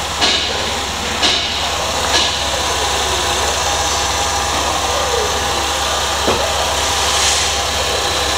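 2008 Holden Commodore's 3.6-litre V6 idling steadily under the open bonnet, with three light knocks in the first two seconds or so.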